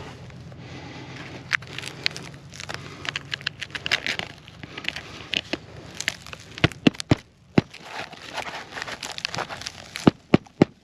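Hammer driving roofing nails back into a lifted asphalt shingle: a quick run of about five sharp strikes a little past the middle and three more near the end. Between them comes scattered light crackling from the stiff shingle being bent up.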